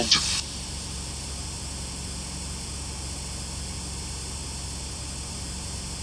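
Steady static hiss from a spirit box app, with a low steady hum underneath; a brief burst of noisier sound comes right at the start.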